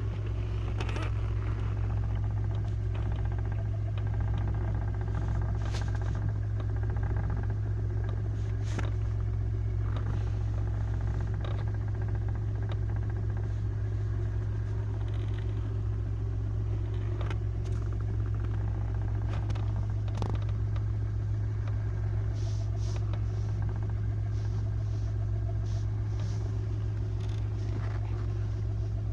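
Car engine idling steadily, with occasional sharp clicks over the low drone: the knock the owner is trying to track down.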